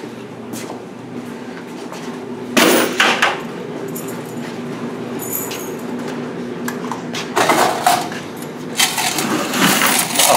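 Metal clanks and rattles as the coin box of a white top-load laundromat washer is opened and its metal coin tray pulled out, in three bunches: about two and a half seconds in, around seven and a half seconds, and near the end. A steady low hum runs underneath.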